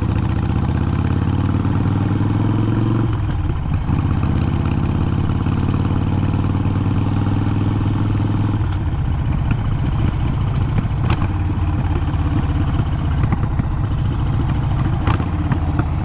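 Harley-Davidson Sportster V-twin, bored out to 1275 cc, running under way on a break-in ride. Its steady note shifts about three seconds in, turns rougher around eight seconds, and two sharp pops follow later: the backfiring off the throttle that the rider puts down to it running rich.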